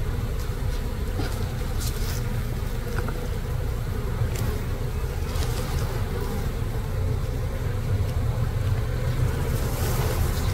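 Honeybees from an opened nuc colony buzzing in a steady drone over a constant low rumble, with a few faint clicks.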